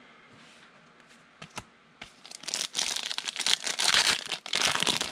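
Wrapper of a trading card pack being torn open and crinkled: a couple of faint clicks, then dense crinkling from about two seconds in.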